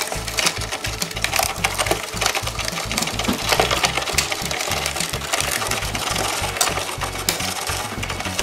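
Plastic hand crank of a McDonald's Hamburger Maker toy being turned, the paddle in its clear mixing chamber rattling and clicking in a quick, continuous rhythm.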